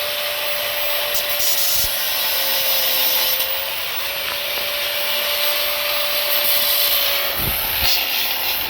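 Handheld power tool running steadily under load: a steady motor whine under a harsh grinding hiss, with a few low knocks about two seconds in and near the end.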